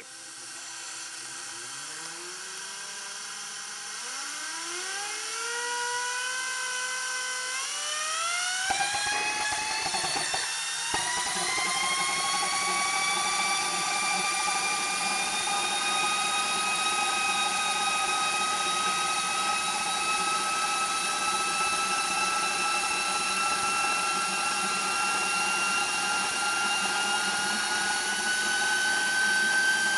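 Small homebuilt gas turbine, built on a Subaru Legacy ball-bearing turbocharger core, being started. Rising whines spool up over the first several seconds. At about nine seconds a rushing combustion noise comes in as it lights. It then runs with a steady high whine that climbs in pitch near the end as it speeds up.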